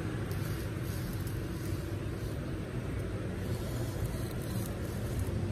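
Steady low background rumble, with faint scrapes and light knocks as a bench grinder that is not running is turned around on a cardboard sheet.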